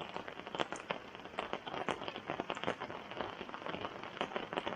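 Rain falling, a dense irregular patter of drops.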